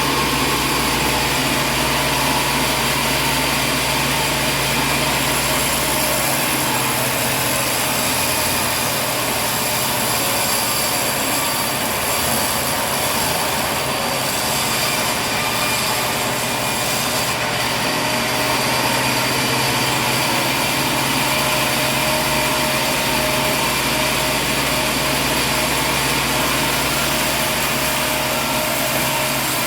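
Steady machine drone: an even hiss with several steady tones, unchanging throughout.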